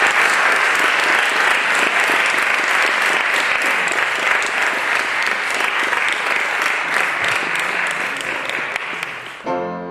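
Audience applauding steadily with many hands clapping, thinning out and cut off abruptly near the end.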